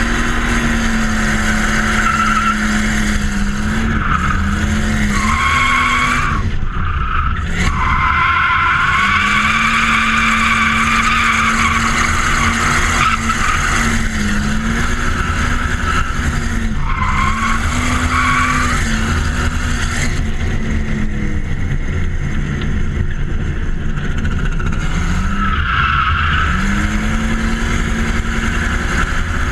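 BMW 325tds's M51 2.5-litre turbodiesel straight-six running hard as the car drifts, its revs dipping and climbing back several times. The tyres squeal through long stretches of the slides.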